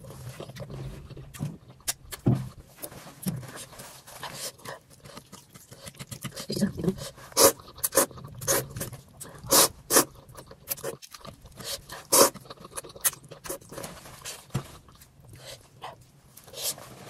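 Close-up eating sounds of noodle soup: wet slurps of thukpa noodles, chewing and lip smacks, with sharp loud slurps every second or so, heaviest in the middle of the stretch.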